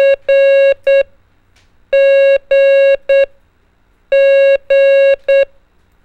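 Morse code practice tone sending the letter G, dah-dah-dit, three times: a steady mid-pitched beep in two long notes and a short one, each group about two seconds apart.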